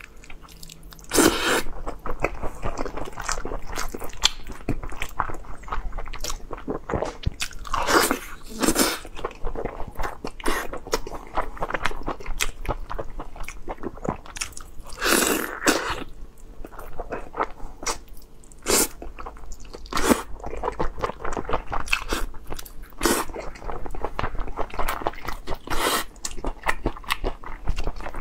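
Close-up mouth sounds of a person biting and chewing hand-held boiled lamb ribs: a constant run of wet chewing clicks, with louder bites every few seconds.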